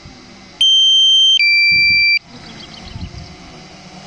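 Drone remote controller's low-battery warning: a loud two-tone electronic alarm, a high steady beep about half a second in stepping down to a lower one, about a second and a half in all. It signals that the drone's battery is nearly flat.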